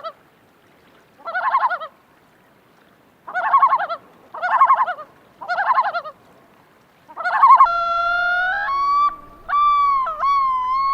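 Common loon calling: a series of short quavering tremolo calls, then, about three-quarters of the way through, long drawn-out wailing notes that hold steady and break sharply in pitch.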